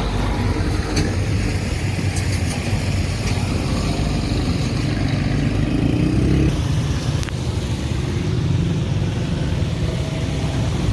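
Motor vehicle engine running in road traffic, a steady low rumble whose pitch rises for about six seconds and then drops.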